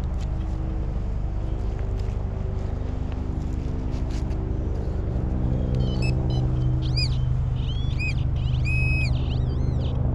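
A steady low mechanical drone, like an engine running, holds throughout. From about six seconds in, a few high warbling tones rise and fall over it.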